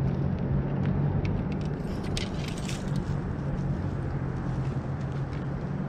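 A steady low mechanical hum, with a few light clicks and rattles in the first few seconds.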